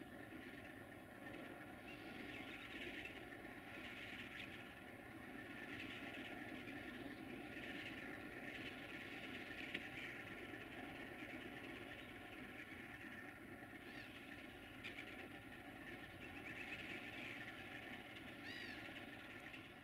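Distant Sulzer-engined diesel locomotives running at low revs, a steady drone, with birds chirping over it and a short chirping call near the end.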